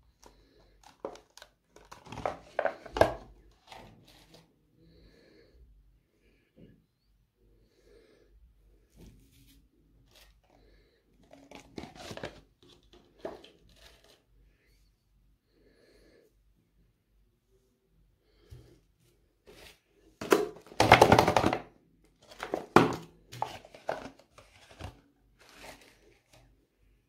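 Bars of soap and their plastic packaging handled by hand: scattered taps and clicks, with bursts of crinkling and tearing, the longest and loudest about two thirds of the way through.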